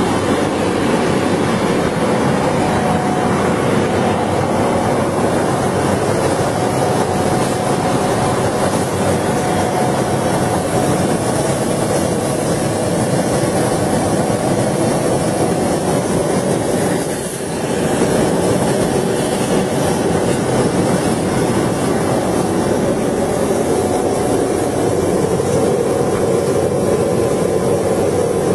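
Steady, loud running noise of a laser cutting machine's setup, with its exhaust blower and air compressor running, dipping briefly about two-thirds of the way through.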